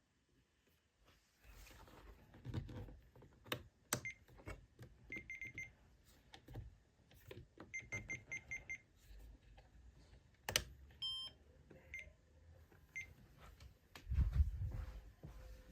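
Faint short, high electronic beeps in quick runs of four or five, with scattered clicks and a soft low rumble that grows louder near the end.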